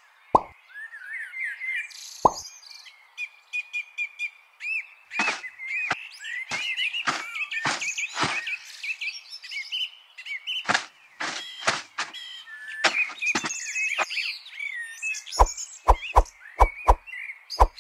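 Birds chirping throughout, with short sharp pops scattered through and a quicker run of them near the end.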